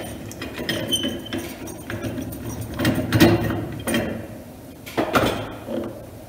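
Wheel balancer's hub nut being spun off its threaded shaft to free the wheel: metal clicking, scraping and knocking. The knocks come in clusters about three seconds in and again about five seconds in.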